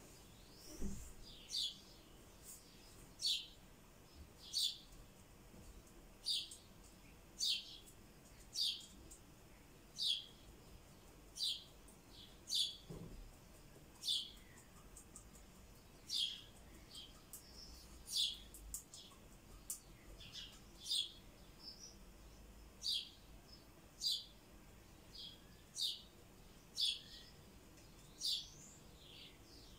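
A bird repeating a short, high chirp over and over, about once a second at a slightly uneven pace.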